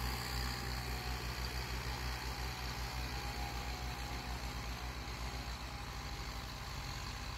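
Diesel tractor engine running steadily, with a fast, even low throb.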